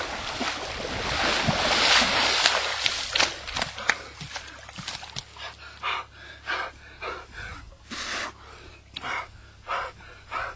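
Water splashing as someone wades through shallow water carrying another person. After that come short, rhythmic, breathy puffs about twice a second, keeping time with chest compressions.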